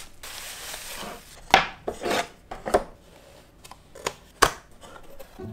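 Bubble wrap rustling as it is handled around a wooden picture frame, then a series of sharp clicks and knocks as the frame is handled and the metal tabs holding its hardboard backing are bent open.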